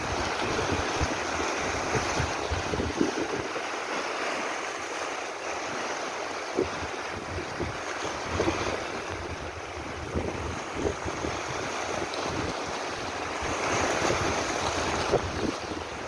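Small sea waves washing and splashing over shoreline rocks, with wind buffeting the microphone. The wash swells louder near the end.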